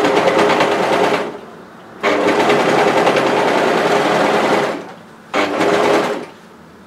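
Brother 1034D overlocker (serger) running as it stitches a straight edge, in three runs: through about the first second, a longer one from about two seconds to nearly five, and a short one near the end, with pauses between.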